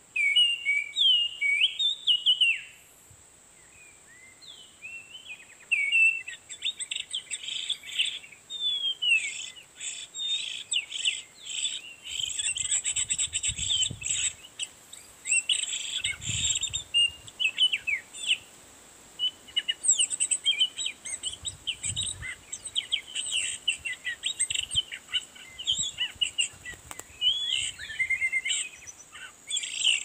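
Oriental magpie-robin song: quick, varied whistled phrases and chirps, loud at once, pausing briefly about three seconds in, then running on almost without a break. A few low rumbles come in the middle.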